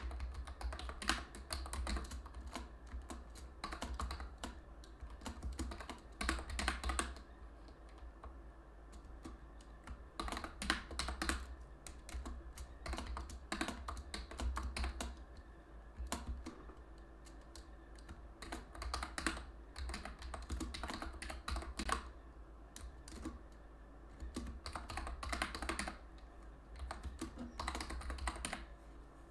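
Typing on a computer keyboard: bursts of quick key clicks a second or two long, separated by short pauses, over a low steady hum.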